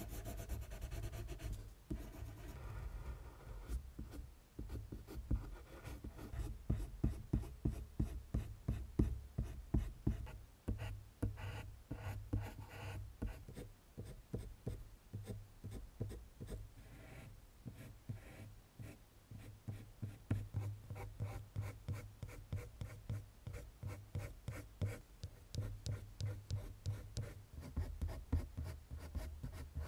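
Prismacolor colored pencil scratching on drawing paper in quick, repeated short strokes, laying in fur texture and shading, over a steady low hum.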